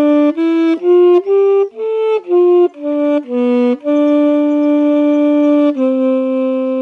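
A solo wind instrument plays a slow melody, one note at a time: a run of short notes, then a long held note, then a lower long note held to the end.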